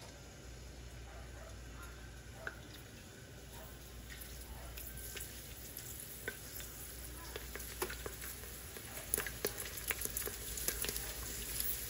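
Duros wheat pellets frying in 350°F oil: a low sizzle with sharp crackling pops that grow louder and more frequent as the pellets puff up.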